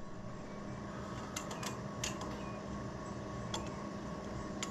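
A handful of light, irregularly spaced clicks and taps of hand tools working at a stubborn fastener, over a steady background hum.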